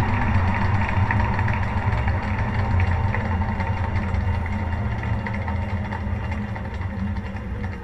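BEKO washing machine running its final spin, heard from inside the drum: a steady low motor-and-drum hum with faint clicks and rattles, slowly getting quieter.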